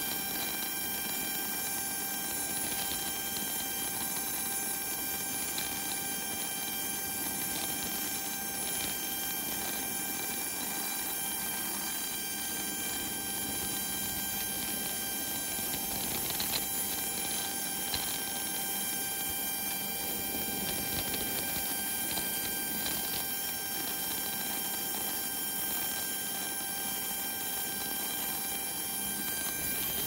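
Auxiliary power unit (APU) of an Embraer jet running with a steady whine made of several high tones held throughout, over a low haze of engine and airflow noise.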